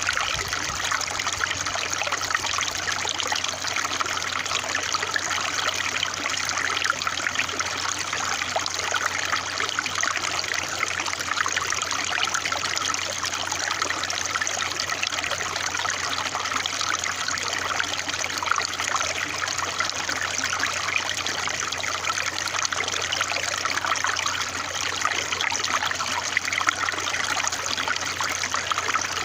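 Water trickling and splashing steadily, a continuous bright babble with no pauses.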